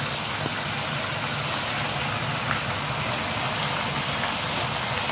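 Steady sizzling hiss of grated beetroot and onion-tomato masala frying in a pan, over a low steady hum.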